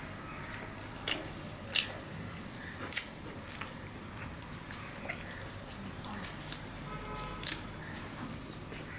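Eating by hand: a crisp tandoori roti being torn and scooped through mutton curry, with three sharp crackles in the first three seconds and fainter clicks and chewing through the rest.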